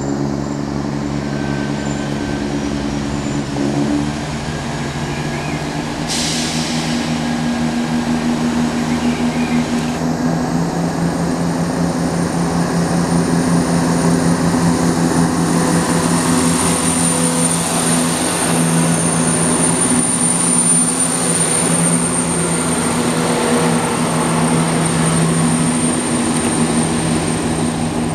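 Class 170 Turbostar diesel multiple unit running past on its underfloor diesel engines: a steady low drone of a few held tones that grows a little louder, with a thin high whine joining about ten seconds in.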